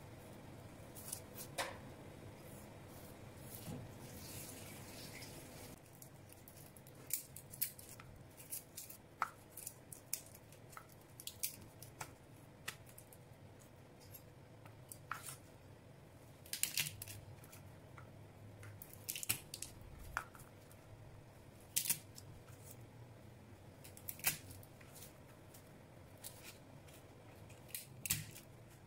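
Chef's knife slicing shallots and working garlic cloves on a plastic cutting board: irregular sharp taps and clicks of the blade, with soft crackles as the papery garlic skins break.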